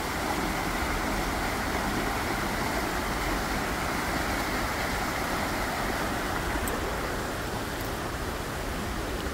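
Steady rushing of a muddy stream running in flood after heavy rain, easing slightly near the end.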